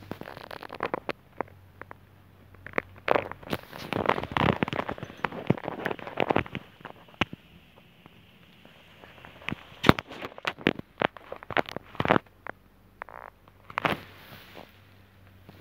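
Irregular scuffs, clicks and crackles, as from footsteps on a gritty concrete floor and handling of the recording phone, over a faint low steady hum.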